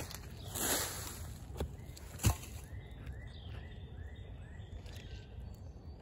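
Rustling in dry bamboo leaf litter, with one sharp knock about two seconds in. After it a faint call of six short arching notes repeats about twice a second, then stops.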